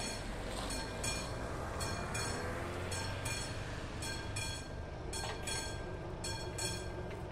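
Level-crossing warning bell of the classic type ringing in rapid repeated strokes, two to three a second, warning that a train is coming as the barriers start to lower. A steady low rumble runs underneath.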